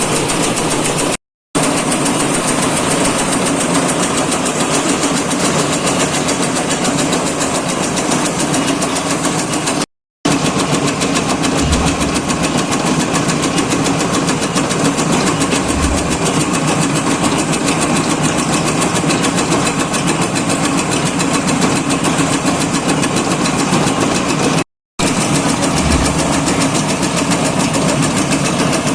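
Motor-driven tobacco shredding machine running steadily with a fast, even mechanical chatter, cut off briefly three times.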